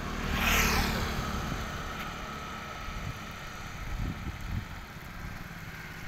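A small motorcycle-type engine on a passing road vehicle, a sweep of sound that falls in pitch and fades within the first second, over a steady low engine rumble.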